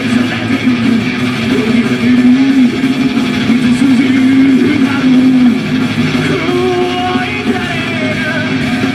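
Heavy metal band playing live: electric guitars, bass guitar and drums in a loud, continuous full-band mix.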